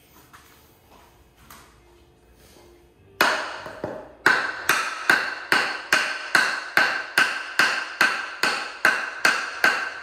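Hammer blows on a block of wood held against a pulley on a Toyota 4A-GE engine, driving the pulley off in place of a puller. One blow about three seconds in, then a steady run of about two or three blows a second, each with a short ring.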